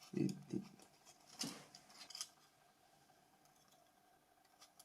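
Light clicks and taps of small plastic and metal phone parts being handled and fitted, a few in the first two seconds or so, then near quiet.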